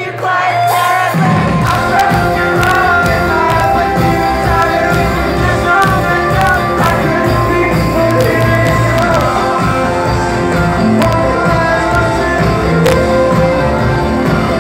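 Live pop-rock band playing with a singer, keyboards, bass and drums; after a sparse opening, the full band with drums comes in about a second in.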